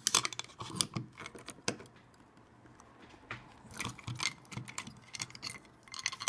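Sharp metallic clicks and small scrapes of a steel screwdriver prying a hard drive's head actuator arm against the pull of its voice-coil magnet. They come in a cluster at the start and another from about four seconds in.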